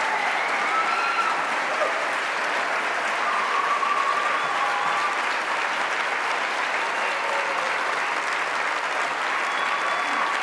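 Audience applauding steadily after a barbershop quartet's song, with a few voices calling out over the clapping.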